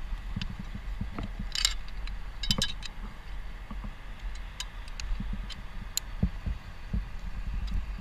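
Metal climbing and rigging hardware, a carabiner and pulley on a sling, clinking as the climber handles it. There are quick runs of clinks about one and a half and two and a half seconds in, then single sharp clicks, over a low wind rumble on the helmet microphone.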